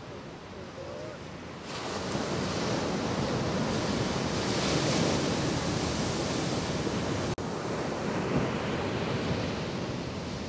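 Ocean surf breaking in the shorebreak: a steady rush of crashing waves and whitewater. It rises suddenly about two seconds in and drops out for an instant about seven seconds in.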